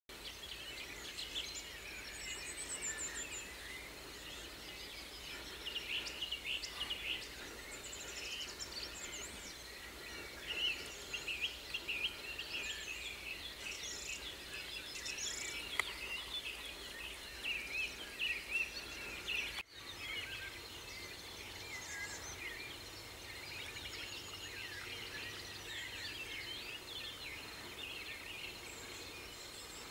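Many birds singing at once, a dense chorus of chirps, whistles and trills. The sound drops out abruptly for a moment about two-thirds of the way through.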